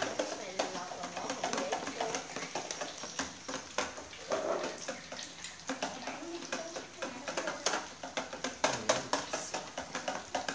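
Hot oil crackling and spattering as balls of food deep-fry in a wok, with metal tongs clicking against the pan. Voices chatter in the background.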